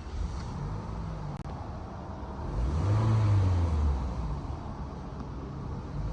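A 2011 Toyota Camry engine being revved: a small blip of the throttle near the start, then a fuller rev that rises for about a second and falls back to idle, and another rev beginning at the end.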